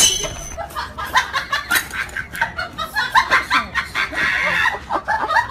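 A tabby-and-white cat vocalising with its mouth wide open, a rapid run of short calls, several a second.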